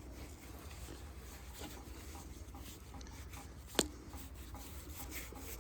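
Faint rubbing and rustling of dry cattail seed heads being squeezed and twisted by hand, the fluff coming off. One sharp click nearly four seconds in.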